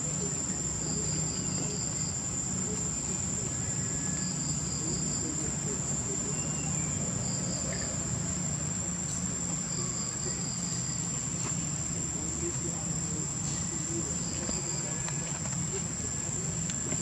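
Insects calling: one steady high-pitched trill throughout, with short runs of chirps coming in every couple of seconds, over a low steady hum.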